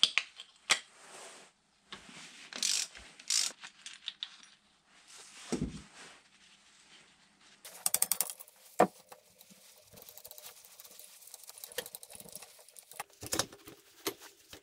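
Small metal parts and tools clicking and clinking while the gearshift cam stopper and gearshift shaft assembly are taken off a Suzuki GS 500 engine. There is a low knock about five and a half seconds in and a quick run of clicks near eight seconds.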